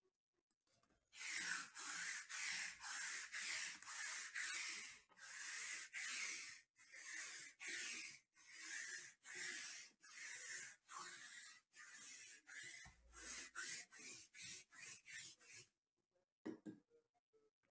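Sticky lint roller rolled back and forth over a felt mat, its adhesive tape crackling in quick strokes, about two a second. The rolling starts about a second in and stops shortly before the end.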